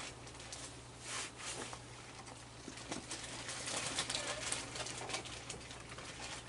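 A crowd of raccoons eating on a wooden deck: a steady stream of small chewing, smacking and scrabbling clicks, with soft calls among them.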